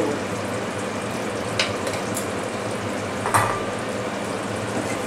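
Creamy paneer gravy simmering in a frying pan on a low flame, a steady sizzling bubble with ghee just spooned over the top. Two light spoon clicks come about one and a half and three and a half seconds in.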